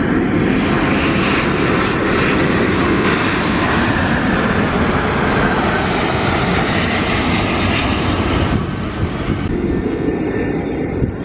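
Airbus A350-1000 airliner passing low on final approach, its Rolls-Royce Trent XWB engines making a loud, steady jet rush. About eight and a half seconds in the sound drops suddenly to a quieter, duller jet noise from an Airbus A320 further out on approach.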